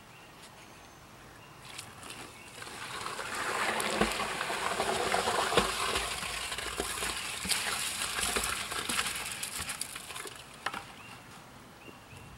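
Wet mixed concrete sliding and slopping out of a plastic bucket into a post hole, with a few sharp knocks. It builds up about two seconds in and tails off near the end.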